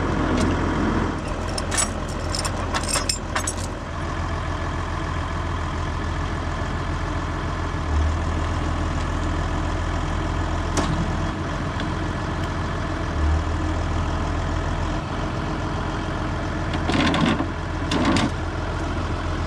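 Tractor engine idling steadily while its front-end loader holds a concrete water trough on chains, with a few sharp metal clinks near the start. The engine note swells briefly twice.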